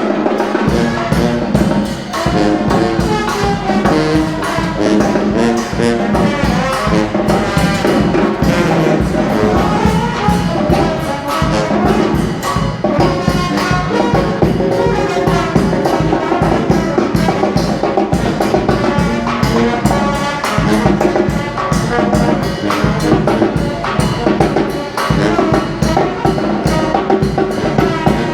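Brass band playing jazz, trumpet and trombone over a steady drum beat.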